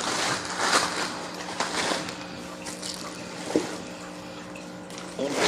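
Cardboard box and plastic packaging rustling and scraping in several short bursts as a boxed dog stroller is pulled free, over a faint steady hum.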